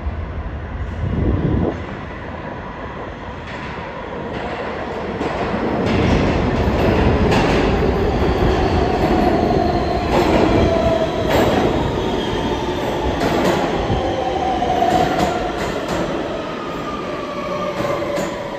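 R160 subway train pulling into the station: wheels rumbling and clicking over rail joints, growing louder about six seconds in as it draws alongside, with a whine that falls in pitch as it slows near the end.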